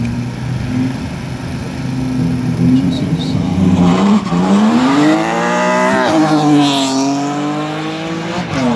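Drag-race cars launching off the start line. The engines rumble at the line, then climb steeply in pitch as the cars accelerate hard, with a sudden drop near six seconds in as a gear is changed, and another drop near the end.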